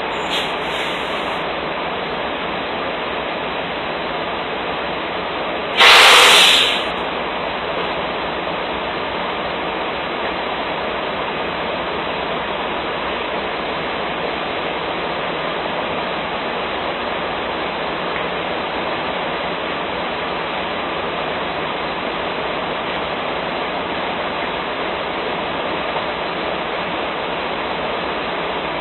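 Steady, even noise with no pitch or rhythm, and one loud short hiss about six seconds in.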